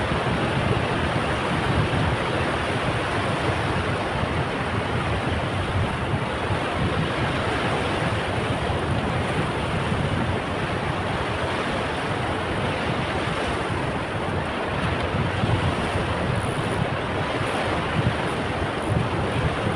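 Sea surf breaking on a sandy beach, a steady rushing noise, with wind rumbling on the microphone.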